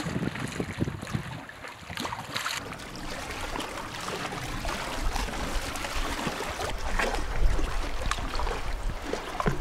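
Small waves of seawater lapping and trickling against shoreline rocks and tide pools. A low wind rumble on the microphone builds from about halfway.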